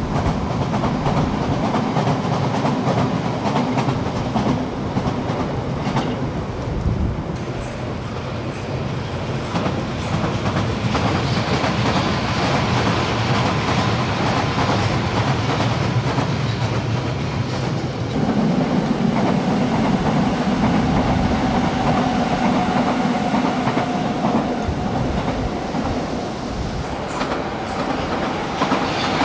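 Nagoya Higashiyama Line subway train running past on an open-air surface track, a steady rail rumble. The sound changes about two-thirds of the way through, and a faint steady whine joins it late on.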